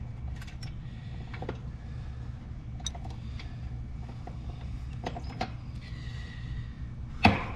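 Small metallic clicks and taps as a hand twists a loose refrigerant pressure switch off its fitting on an air-conditioner condenser's copper line, with one sharp click near the end, over a steady low hum.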